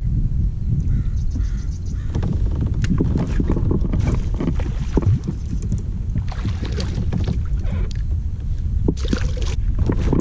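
Wind buffeting the microphone over water lapping against a kayak hull, with a few short clusters of clicks and splashes.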